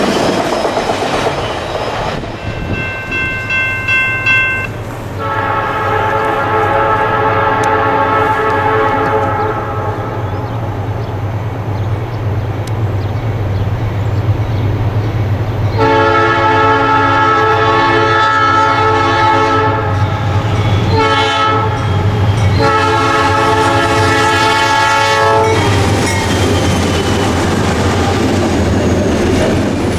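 Tail of a freight train of autorack cars rolling past with wheel clatter. After that an approaching Norfolk Southern freight sounds its locomotive air horn for the grade crossing: several long blasts and one short one. Its diesel locomotives rumble past near the end.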